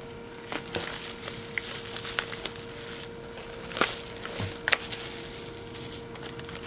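Bubble wrap and plastic parts bags crinkling and crackling as they are handled in a cardboard box, with scattered sharp crackles, the loudest a little past halfway.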